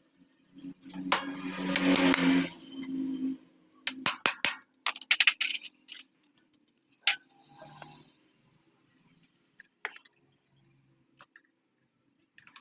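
Metal tools and engine parts clinking and knocking during motorcycle engine disassembly, a quick run of sharp clinks after a louder, noisy two-second stretch about a second in, then a few scattered clinks.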